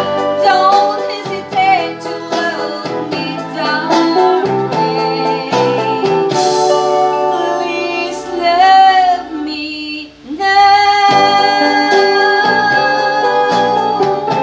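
A woman singing into a microphone over a recorded backing track, her held notes wavering with vibrato. About ten seconds in her voice stops and the backing music carries on with long held chords.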